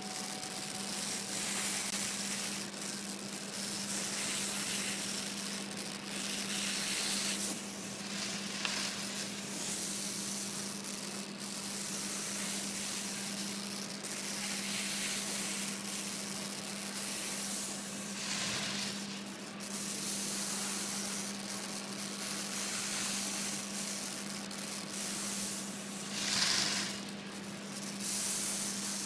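Flame-polishing torch burning with a steady hiss as its flame is run along acrylic edges, swelling louder a few times, most near the end, over a steady low hum.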